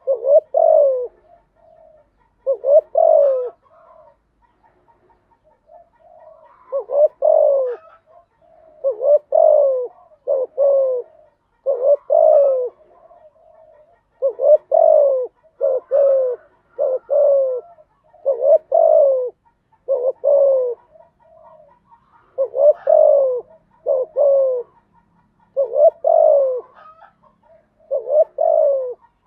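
Spotted dove cooing: groups of two or three low coos, each note falling in pitch, repeated every second or two, with one pause of a few seconds near the start.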